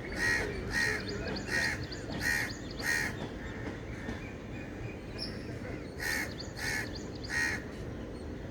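A bird calling repeatedly: about six calls in quick succession, each roughly two-thirds of a second apart, then a pause, then three more calls.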